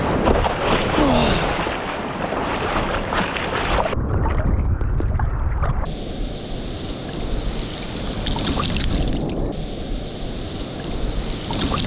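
Ocean surf washing over a reef break, with wind buffeting the microphone.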